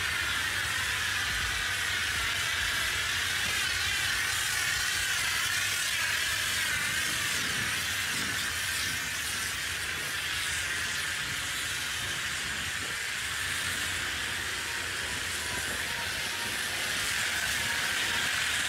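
Pressure-washer lance spraying a steady hissing jet against an excavator's foam-covered steel arm and tracks, the hiss wavering slightly as the spray moves over the metal.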